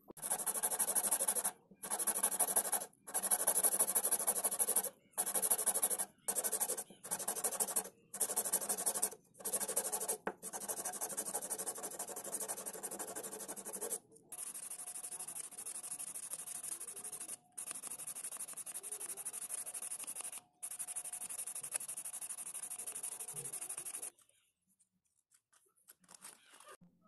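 A wooden tool handle being sanded by hand on a sheet of sandpaper. Strokes of about a second each, separated by short gaps, run for about half the time, then turn to steadier, quieter rubbing that stops a few seconds before the end.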